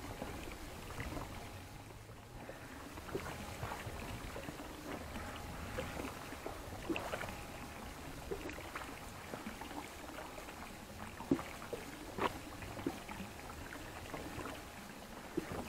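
Water lapping against a small boat's hull, with scattered light knocks and clatter as gear is handled on board.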